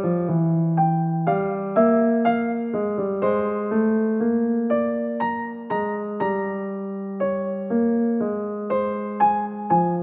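Background piano music: a slow, gentle melody of notes struck about twice a second, each fading before the next.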